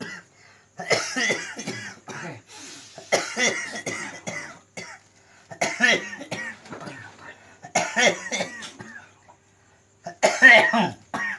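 A man coughing hard in repeated fits, about five harsh bouts a couple of seconds apart: his long-standing chronic cough, which the healer attributes to a supernatural disturbance.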